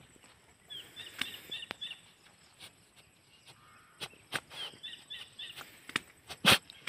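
Farm dog nosing and sniffing into a rat burrow, its head rustling and crackling the dry grass and twigs. Short high chirps come twice, and one sharp snap near the end is the loudest sound.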